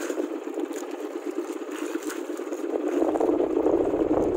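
Small single-cylinder boat engine running with a fast, even putter, growing louder toward the end, with a low rumble joining about three seconds in.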